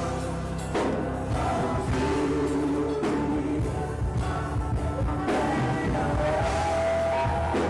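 Gospel worship music: voices singing long held notes over steady instrumental backing.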